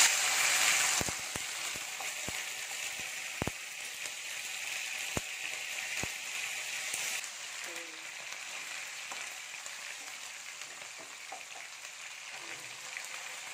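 Chicken pieces coated in spiced grated coconut sizzling in hot oil in a wok. The sizzle is loudest at the start and settles to a steady frying hiss, with a few light clicks in the first half.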